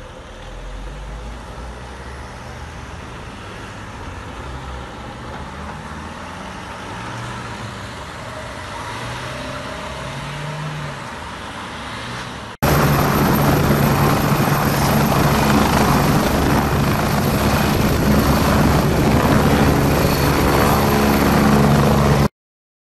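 Car engines as police patrol cars pull away, then, after a sudden cut about halfway through, a much louder steady helicopter sound that stops abruptly just before the end.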